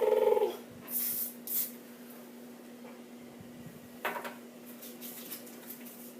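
Aerosol spray-paint can sprayed in two short hissing bursts about a second in, with another short burst around four seconds in. A brief pitched tone comes just before the bursts, and a steady low hum runs underneath.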